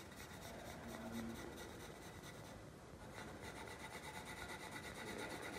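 Pencil scratching on drawing paper in quick back-and-forth shading strokes, laying down tone on a still-life drawing.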